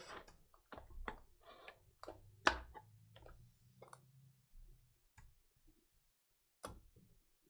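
Trading cards and their plastic holders being handled: irregular light clicks and rustles, one sharper click about two and a half seconds in, thinning out after about four seconds with a last click near the end.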